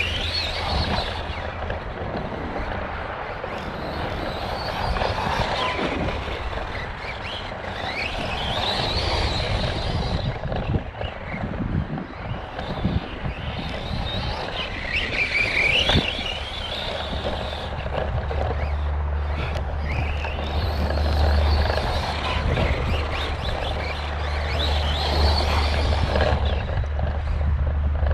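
Arrma Kraton 4S RC truck's brushless motor and drivetrain whining as it laps a track, the pitch rising and falling with each burst of throttle and braking several times over, above a steady low rumble. The drivetrain carries what the owner calls an unhappy bearing or gear somewhere.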